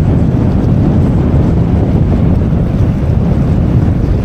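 Strong wind buffeting the microphone in a steady low rumble, with choppy sea water washing against the edge of the path.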